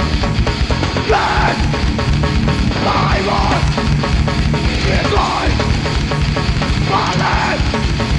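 A live heavy hardcore band playing loudly, with a dense full-band sound and a heavy low end. A bright figure recurs about every two seconds.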